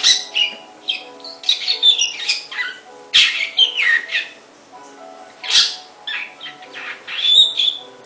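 Caged songbird calling and singing: bursts of loud, varied chirps and whistled notes, some sliding down in pitch, over quiet background music.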